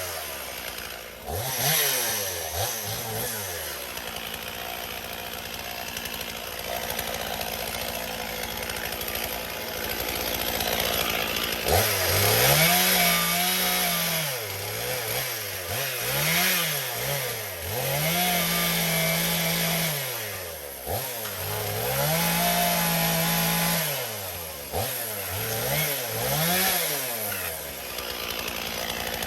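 Petrol chainsaw running low at first, then revved up and down again and again from about twelve seconds in. Three times it is held at full throttle for a second or two, as in bucking a fallen branch.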